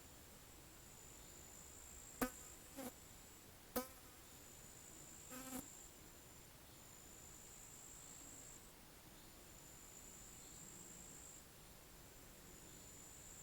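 Faint pond ambience: an insect trilling on one high steady pitch in phrases of a second or two, broken by short gaps. Between about two and six seconds in, four short frog croaks stand out.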